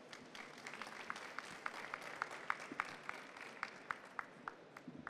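Applause from a small audience: a soft patter of many hand claps with a few louder single claps standing out about three times a second, dying away near the end.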